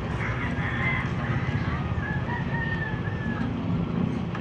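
A rooster crowing once, a long wavering call of about three seconds, over a steady low rumble of street traffic.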